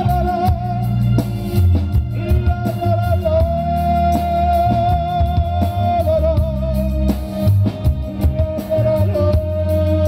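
Live band music: a male singer over electric bass, drum kit and keyboards, with a long note held through the latter part.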